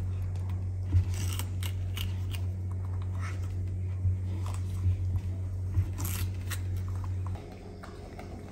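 A baby monkey biting and chewing a raw cucumber: irregular crisp crunches and snaps, with handling of the cucumber against the cardboard box, over a steady low hum that drops away near the end.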